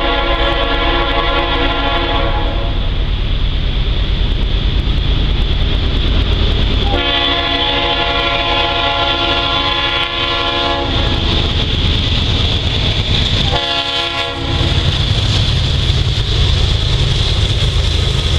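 Norfolk Southern freight train's locomotive horn blowing for a grade crossing: a long blast ending about two seconds in, another long blast from about seven to eleven seconds, and a short one around fourteen seconds. Under the horn runs the steady low rumble of the approaching diesel locomotives, which grows louder after the short blast as the train reaches the crossing.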